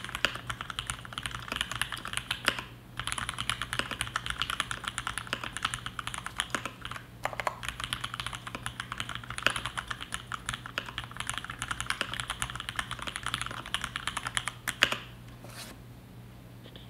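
Fast, continuous typing on a DuckMini v1 mechanical keyboard with linear Cherry MX Black switches on 62 g springs and GMK Dolch keycaps: a dense run of keystrokes, with short pauses about three and seven seconds in. One louder keystroke comes about fifteen seconds in, and the typing then stops.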